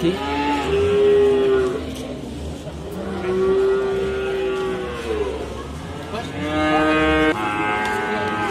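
Young bull calves mooing repeatedly: about four long, fairly high-pitched calls one after another, the longest near the middle.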